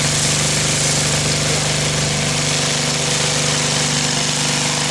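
An engine running steadily at idle, with the hiss and splash of a strong water jet hitting the steel floor of an elephant transport truck.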